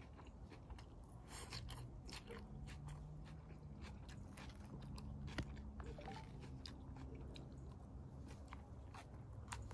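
A person chewing and biting crunchy food close to the microphone, with many small sharp crunches and mouth clicks.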